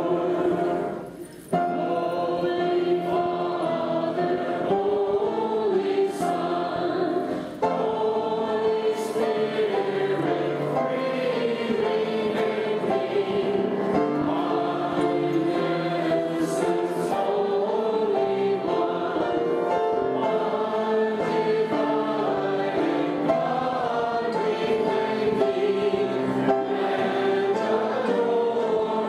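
Choir singing a hymn in sustained chords. The sound briefly drops out twice, about a second in and again near eight seconds.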